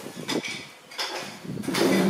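Dogs eating dry kibble: irregular crunching and clicks as it is picked up and chewed, with the plastic bowl knocking on the tile floor, getting louder near the end.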